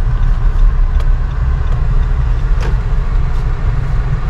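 Steady low rumble of a car cabin while the car is driven slowly, with a few faint clicks.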